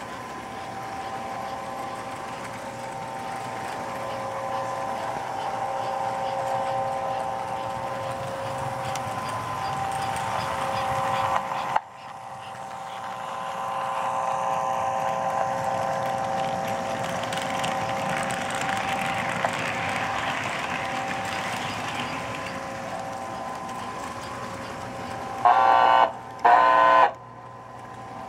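American Flyer Hudson S-gauge model steam locomotive and its cars running on the track with a steady hum and rolling rumble, louder as the train passes close. Near the end the locomotive's electric whistle gives two short blasts.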